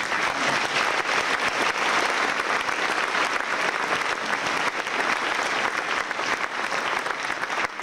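A large audience applauding: dense, steady clapping that dies away near the end.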